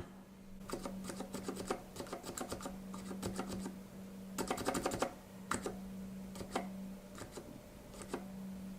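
Gateron Silent Brown mechanical keyboard switch pressed repeatedly in a switch tester: a fast run of soft clicks, reasonably quiet but scratchy sounding.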